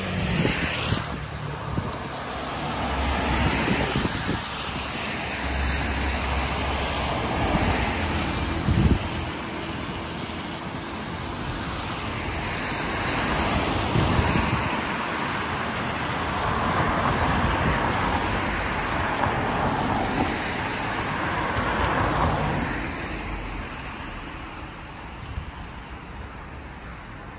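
Road traffic on a wet road: several cars pass one after another, their tyres swishing as each one swells and fades. It grows quieter near the end.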